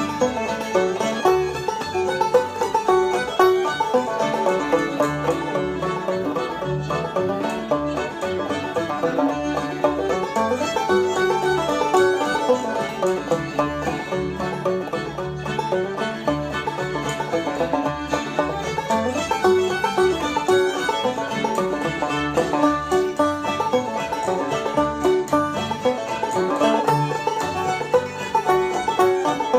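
Instrumental string-band tune with banjo picking at the front and a steady bass line underneath, playing without a break.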